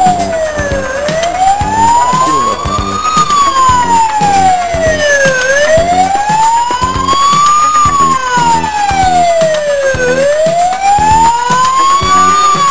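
Siren wailing, rising and falling slowly, about one full rise and fall every four and a half seconds, over music with a steady beat.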